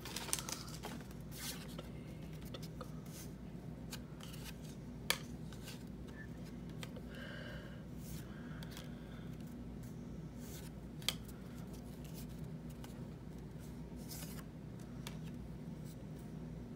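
Stack of Score football trading cards being flipped through by hand, each card slid off the front and tucked behind the rest, giving a run of soft card-stock slides and flicks with two sharper clicks about 5 and 11 seconds in. A steady low hum runs underneath.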